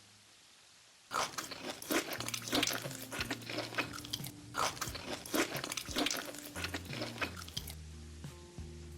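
Crunchy food being bitten and chewed: a dense run of crisp crunches starts about a second in and thins out near the end. Steady low background tones run underneath.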